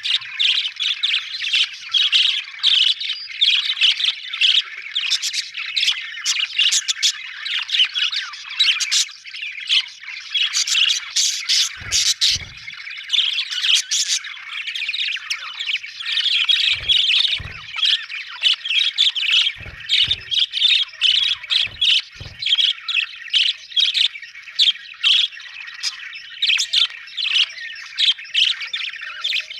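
Budgerigars chattering and squawking together in a continuous stream of rapid short chirps and squawks, with a few soft low thumps in the middle.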